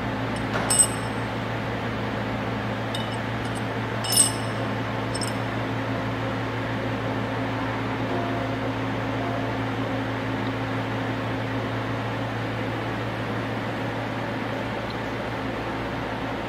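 A few light metallic clinks with a brief high ring as retaining rings are fitted into the groove of a pump casing, the sharpest about a second in and about four seconds in. A steady machine hum runs underneath.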